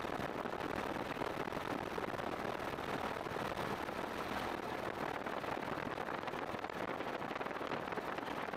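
Steady, unbroken rushing noise of a helicopter in flight, heard from aboard it.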